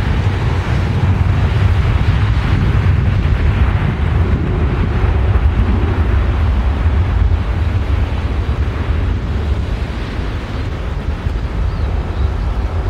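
Strong gusty wind buffeting the microphone: a loud, continuous low rumble that swells a little in the first half and eases slightly later.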